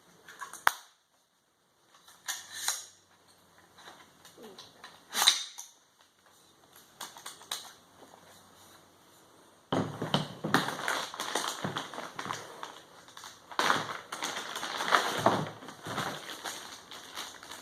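Daniel Defense M4 V7 AR-15 rifle being handled: a sharp metallic clack about a second in, with a few lighter clicks after it, as the action is worked on the emptied rifle. From about ten seconds in, continuous rustling and clattering of items being handled.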